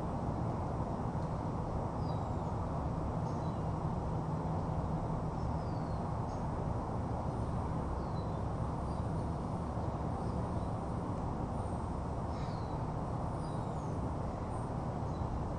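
Outdoor ambience on a webcam microphone: a steady low background noise, with faint, short, high bird chirps here and there.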